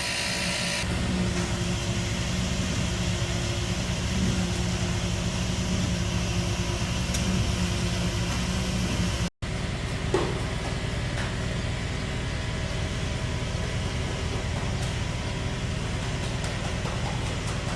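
Mortar pump truck's engine and pump running steadily while floor-screed mortar is pumped through the hose. The sound cuts out for an instant about nine seconds in, then continues.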